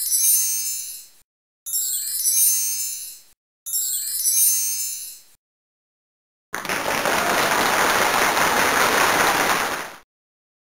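Three bright chiming reveal sound effects, each about a second and a half long with short gaps between, followed from about six and a half seconds in by a few seconds of recorded applause for the top answer, which cuts off suddenly.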